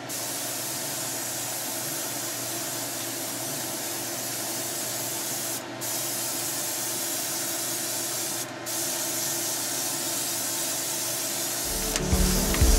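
Airbrush spraying a fine mist of thin black paint, a steady hiss that breaks off briefly twice. Music comes in near the end.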